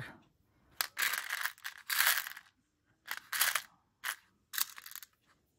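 Paper ephemera being handled and shuffled: several short bursts of rustling and crinkling, with a few sharp clicks in between.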